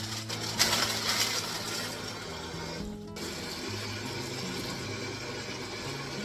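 Soft background music of slow, sustained low notes that change pitch in steps, over a hissing, whirring noise that is loudest in the first second and drops out briefly about three seconds in.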